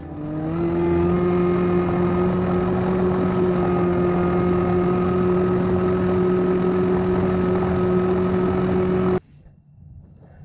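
A motor running at a steady high speed. It rises in pitch as it comes up to speed in the first second, holds one even tone, then cuts off abruptly near the end.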